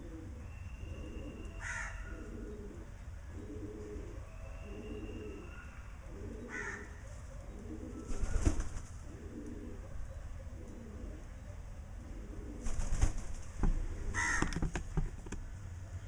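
Feral pigeons (rock doves) cooing, a low call repeated roughly once a second, with a loud flurry of wing flaps about halfway through and more loud flapping near the end.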